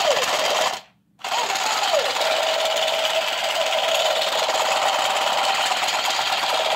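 Battery-powered light-up toy gun's electronic rapid-fire sound effect through its small speaker, a steady loud rattle. It cuts out for a moment about a second in, then starts again and runs on.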